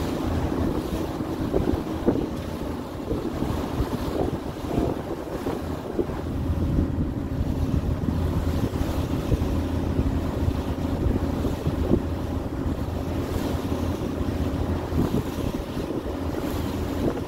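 Passenger ferry under way: a steady low engine hum, water rushing past the hull, and wind buffeting the microphone.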